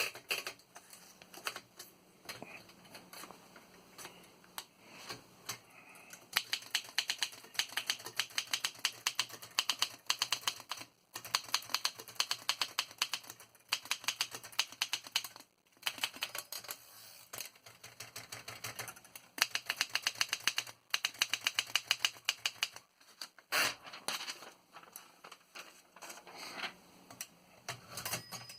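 Underwood No. 5 manual typewriter being typed on: runs of quick, sharp key strikes, many a second, broken by short pauses, with slower scattered strikes at the start and near the end.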